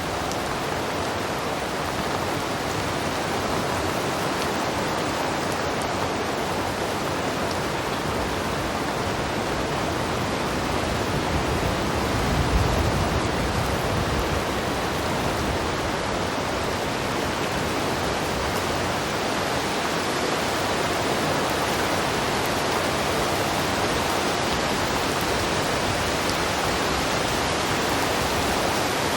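Heavy rain in a steady, dense downpour. A brief low rumble swells up about twelve seconds in.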